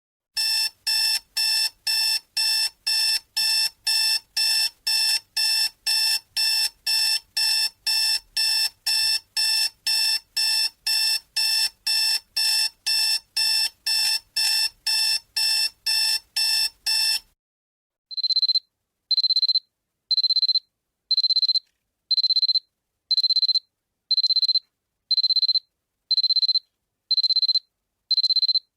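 Electric alarm clock beeping: a fast, buzzy beep about twice a second, then after a short break a different alarm of single high, pure beeps about once a second.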